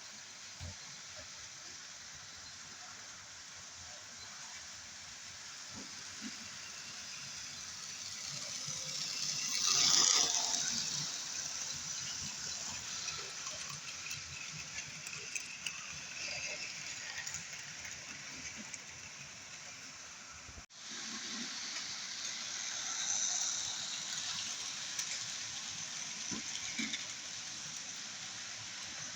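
Model railway locomotives and wagons running on the track: a steady hiss and rattle of wheels and motor. It swells as a train passes close about ten seconds in, and again more mildly a little past the middle.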